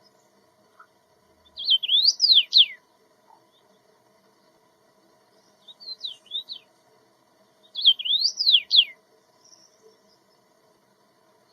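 A small songbird singing three short phrases of quick rising and falling whistled notes, the middle phrase shorter, over a faint steady hum.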